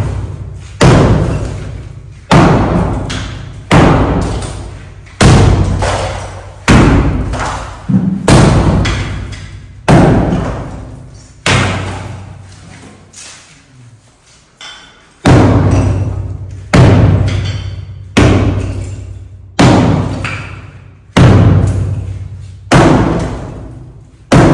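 Sledgehammer blows against a masonry wall, about one heavy strike every one and a half seconds, each ringing out in the bare room. There is a short break with a couple of light knocks about halfway through, then the steady blows resume.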